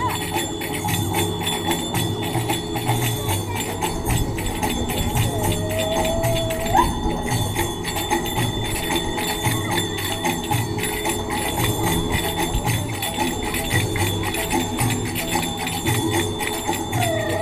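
Belly dance music played over a loudspeaker, with a steady drum beat and constant bright metallic jingling on top.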